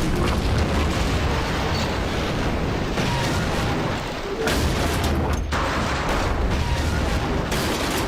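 Loud, continuous low rumbling din with sharp crashes, one coming just after a brief lull about four and a half seconds in. It is the dramatized sound of the Tangiwai disaster: the lahar and the train wreck.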